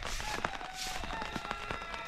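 Footsteps at a walking pace, a hissy stroke about every three-quarters of a second, with scattered small clicks. A faint held tone comes in partway through.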